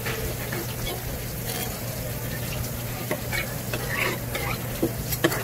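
Knife and hands working small wet gizzard shad on a cutting board: scattered wet scrapes and clicks, with a few sharper knocks near the end, over a steady low hum.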